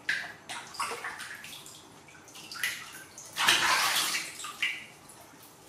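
Water sloshing and splashing in a plastic basin as a kitten is rubbed and rinsed by hand, in irregular splashes with a longer, louder one about three and a half seconds in.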